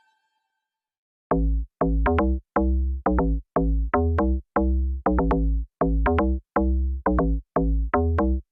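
Background electronic music: a heavy, steady bass beat that starts about a second in after a moment of silence.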